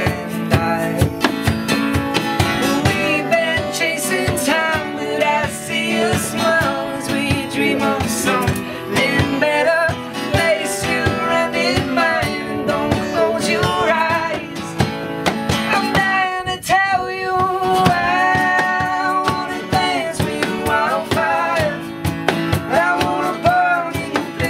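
Live acoustic song: an acoustic guitar strummed to a steady beat, with a man singing lead.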